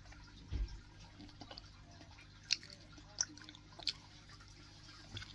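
Faint mouth sounds of teeth being flossed: a low bump about half a second in, then three sharp clicks about two-thirds of a second apart, and one more near the end.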